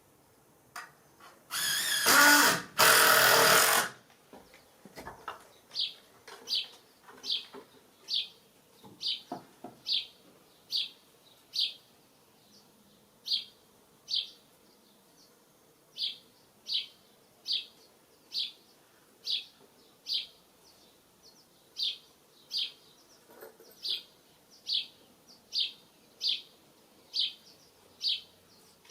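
A loud noisy burst in two parts lasting about two seconds, then a bird's short, high chirp repeated steadily, a little more than once a second.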